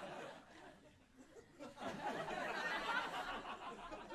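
Audience laughing, dying down about a second in and picking up again about two seconds in.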